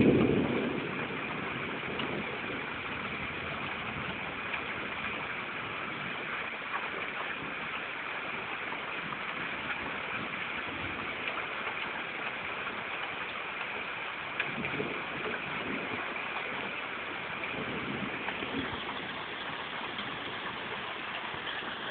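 Steady rain falling in a thunderstorm, an even hiss. A low rumble at the very start dies away within about a second.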